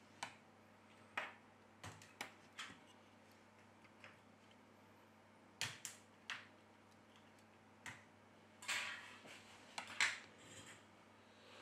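Scattered light clicks and taps of small phone parts being handled: the metal bracket and motherboard lifted out of a Xiaomi Mi Note 10 and set down, with a short scrape near the end.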